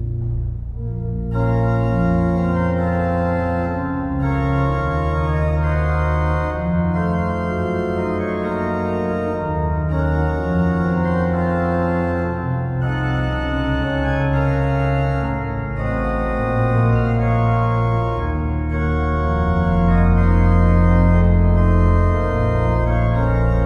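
Background music of slow, held chords that change every second or two over a deep bass line, with the higher notes coming in about a second in.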